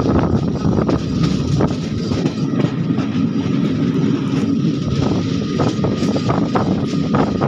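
Passenger express train rolling along the track, heard from inside a coach at an open door or window: a steady rumble of wheels on rails with scattered sharp clicks.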